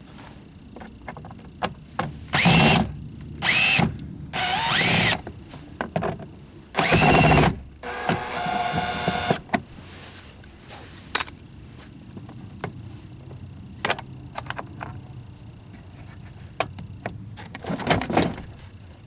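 Cordless drill-driver spinning in short bursts, four runs of about a second each with the motor pitch rising and falling, backing out the screws that hold a car's inner door panel. A buzzing, rattling run follows, then scattered small clicks and knocks of handling parts.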